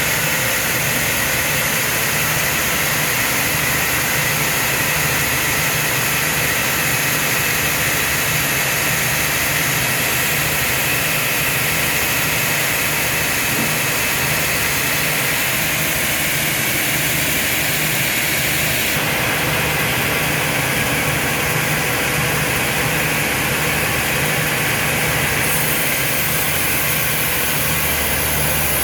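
Sawmill machinery running steadily: a continuous engine-like hum under a broad hiss. The tone of the noise changes abruptly twice, about two-thirds of the way in and again near the end.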